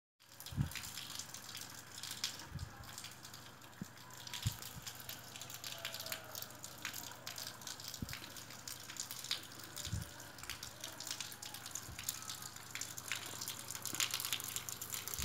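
Wet snowfall pattering and dripping: many small irregular drop ticks over a steady hiss, with a few soft low thumps.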